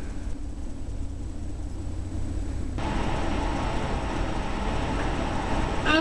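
Steady low rumbling background noise, changing abruptly about three seconds in. Near the end, a short whining voice sound falling in pitch from a grown man playing a baby being spoon-fed strained peas.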